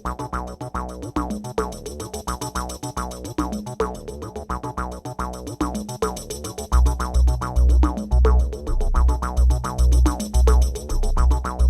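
Electronic background music with a steady drum-machine beat and synthesizer; a heavy bass line comes in about two-thirds of the way through and the music gets louder.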